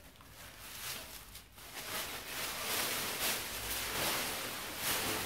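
Large microfiber towel rustling as it is unrolled and shaken out, getting louder after about two seconds as the fabric is flapped open.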